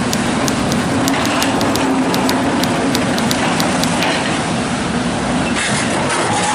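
Kobelco SK130 hydraulic excavator's diesel engine running steadily under work while the operator works the control levers. A quick run of light ticks, about four or five a second, sounds over it and stops about four seconds in.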